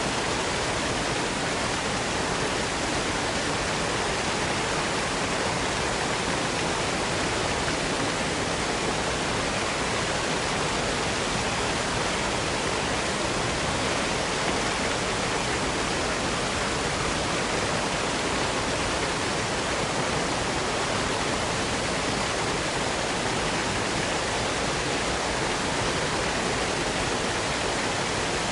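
Waterfall: a steady, unbroken rush of falling water, even across low and high pitches with no change in level.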